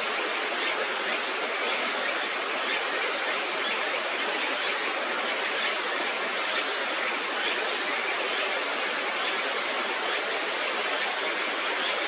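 Steady rushing of a river: an even hiss of flowing water that does not change.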